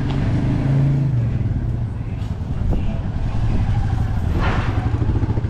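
Street traffic: a motor vehicle's engine running with a steady low hum, and a brief hiss about four and a half seconds in.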